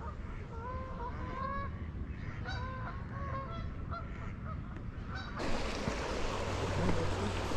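Geese honking, repeated short calls in quick clusters. About five seconds in they give way abruptly to a steady rushing noise.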